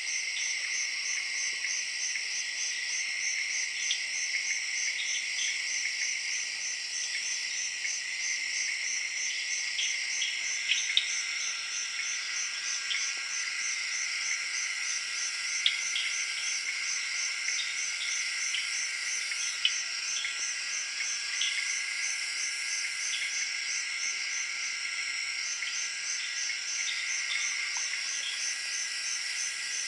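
Night jungle chorus of tree frogs and crickets: a steady, fast pulsing trill high up and a continuous lower drone, with scattered short calls popping out now and then.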